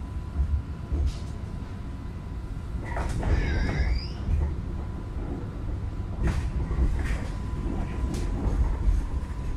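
Low rumble of an Alstom Citadis light rail tram running, heard inside the passenger cabin, with a brief wavering squeal about three seconds in and a few sharp clicks and knocks.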